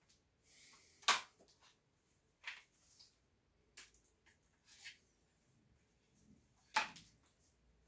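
Handling noise: five or so sharp knocks and clicks of hard objects being picked up and put down, including a knife, with a little rustling between them; the loudest knocks come about a second in and near the end.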